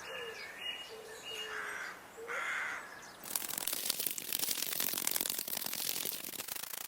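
Animal calls: short low pitched notes, like hoots or coos, with a few higher chirps. About three seconds in, a sudden switch to a dense, rapid clicking rattle.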